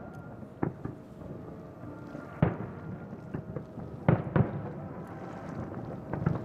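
Aerial firework shells bursting over water: a string of separate booms, each with a short echoing tail. The loudest boom comes about two and a half seconds in, and a close pair follows just after four seconds.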